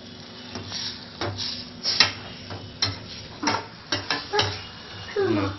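A metal ladle scraping and knocking against a stainless steel kadai as thick tomato thokku is stirred and sautéed. It gives sharp clinks about once a second over a faint sizzle.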